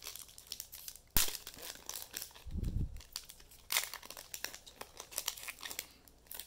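Crinkling and rustling of trading-card pack wrappers and cards being handled, with a sharp tap about a second in and a short low thump a little before the middle.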